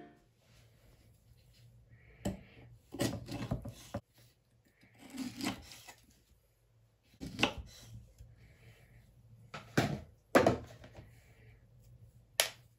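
Pears being cut with a knife on a wooden cutting board: scattered knocks and taps of the blade and fruit on the wood, some in short clusters, with a sharp single knock near the end.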